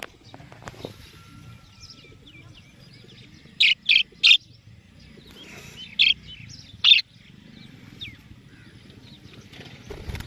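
Pet parrot giving short, shrill calls: three in quick succession about four seconds in, then two more a couple of seconds later, with faint chirping in between.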